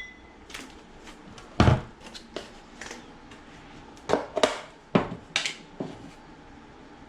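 Kitchen pots, pans and utensils being handled, about a dozen separate knocks and clatters with the heaviest thump about a second and a half in and a quick cluster past the middle.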